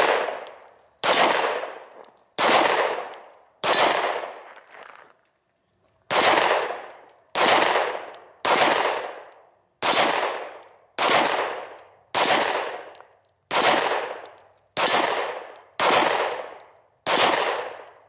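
Pistol shots fired at a slow, steady pace, about one every 1.2 seconds, each echoing off for about a second. Three shots, a pause of about two seconds, then ten more.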